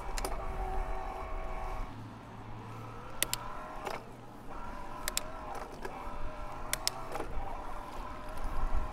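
Yamaha PW-SE mid-drive e-bike motor whining as it assists the pedalling, its pitch dipping and rising with the effort. Several sharp clicks are heard along the way.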